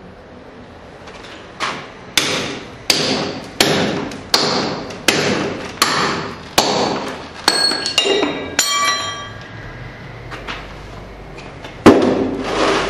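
Hammer driving a chisel into a block of stone in direct carving: a steady run of about nine sharp blows, roughly one every 0.7 s, followed by a brief metallic ringing, a pause, and one loud blow near the end.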